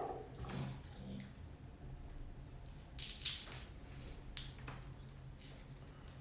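Dry, papery garlic skins crackling and rustling as they are peeled off the cloves by hand, in short scratchy bursts, loudest about three seconds in. A low steady hum runs underneath.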